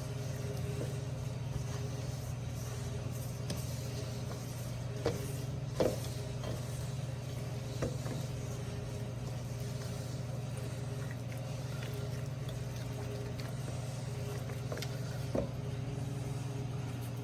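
Electric mixer running steadily as it beats cookie dough, a low motor hum, with a few short knocks against the bowl about 5, 6, 8 and 15 seconds in.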